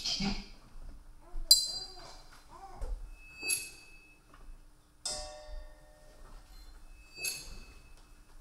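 Electronic soundscape of found-object recordings: a hard object clinking like glass four times, about two seconds apart, each strike ringing briefly, with faint wavering tones between the first two strikes.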